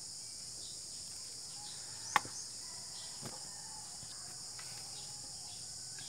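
Steady high-pitched insect drone, with one sharp click about two seconds in and a fainter click about a second later from crimping pliers working on a speargun's shooting line.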